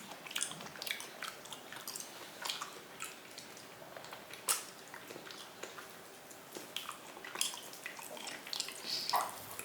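A person chewing raw meat with the mouth open: soft, irregular wet clicks and smacks, one sharper click about halfway through.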